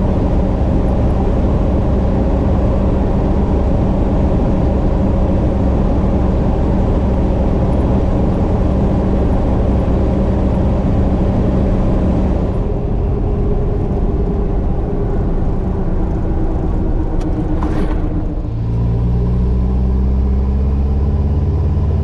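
Cummins R2.8 four-cylinder turbo-diesel in a Jeep TJ running under way, a steady engine hum with road noise. About two-thirds through the road noise eases. Near the end a couple of clicks come, then the engine pitch climbs as it accelerates.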